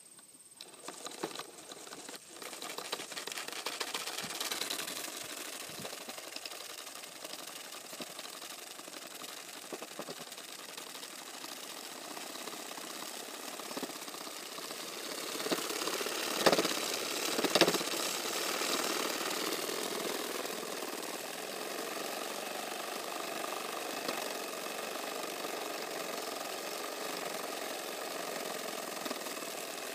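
Wilesco D-52 model steam engine starting about half a second in and then running steadily: a fast, even chuffing of exhaust over a steam hiss, building over the first few seconds, with two louder bursts just past the middle.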